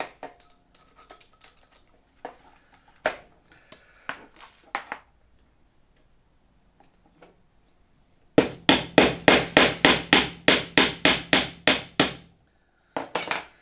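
Ball-pein hammer tapping a steel mandrel stem to drive the broken mandrel insert out of a pulled aluminium pop rivet. A few scattered light clicks and taps come first, then about eight seconds in a quick even run of about five sharp metal taps a second for nearly four seconds.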